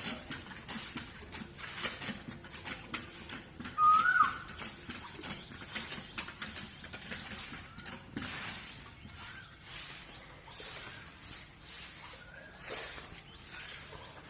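A bird gives a short, loud call that rises and then drops, about four seconds in, with a fainter call near the end. Under the calls runs a repeated high hissing.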